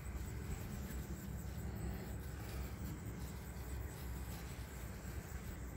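Outdoor ambience: a steady low rumble with a faint, steady high insect drone, and no distinct event.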